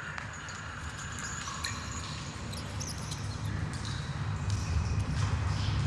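A low rumbling noise with scattered crackles and faint high tones, swelling steadily louder.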